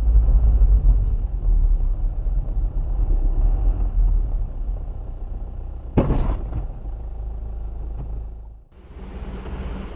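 Low in-cabin road and engine rumble of a car driving, picked up by a dashcam, with one sharp knock about six seconds in. The rumble drops away near the end.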